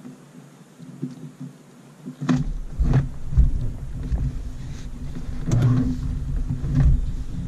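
Low rumbling and several sharp knocks through the hull of a Porta-Bote folding boat, picked up by a camera mounted on the boat; the rumble starts about two seconds in.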